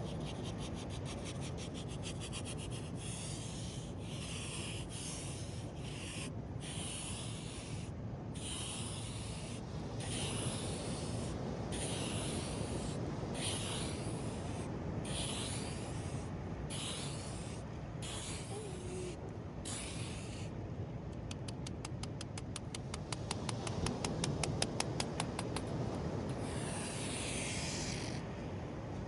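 Sand being scratched close to the microphone in repeated strokes about a second long, with stretches of fast, rapid scraping near the start and again later, over a steady low rush of surf.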